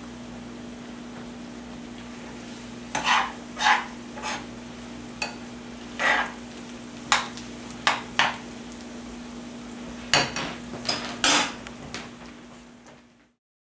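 Metal spoon stirring bacon and onions frying in a skillet: a dozen or so irregular scrapes and clacks against the pan, starting about three seconds in, over a soft sizzle and a steady low hum. The sound fades out near the end.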